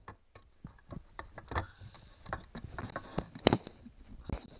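Irregular clicks and knocks of handling as hands move parts and wires inside a trolling motor's plastic head housing. The loudest knock comes about three and a half seconds in.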